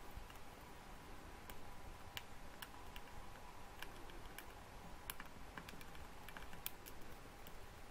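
Hybrid dwarf hamster gnawing a monkey nut's shell: faint, irregular small clicks and crunches, a few at a time, over a faint steady hum.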